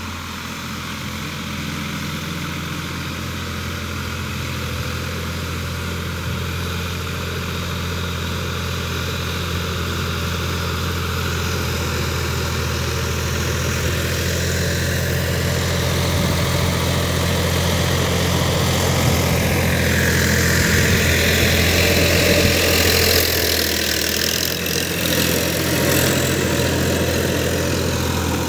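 Sonalika DI-50 RX tractor's diesel engine running steadily while pulling a rotary tiller, getting louder as it comes closer. In the last third, a louder high-pitched noise rises over the engine note as the tractor and tiller near.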